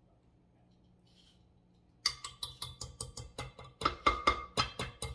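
A kitchen utensil knocking quickly and repeatedly against a mixing bowl, about six sharp knocks a second with a light metallic ring, starting about two seconds in and lasting about three seconds, as whipped cream is knocked off.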